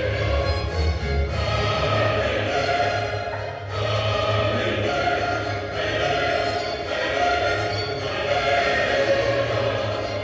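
Choir singing a hymn in long, held phrases.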